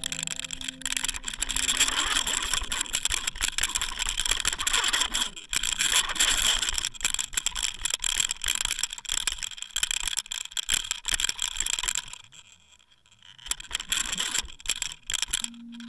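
Fishing reel rattling with a fast, dense run of clicks as a dentex strikes the live squid bait, with a short lull about twelve seconds in.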